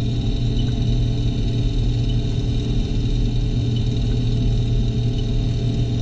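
Combine harvester running steadily while harvesting corn, a constant drone with a faint high tick repeating about every second and a half.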